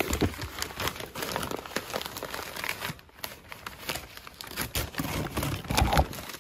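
Gift-wrapping paper crinkling and rustling as hands pull a wrapped package open, with a brief lull about halfway through.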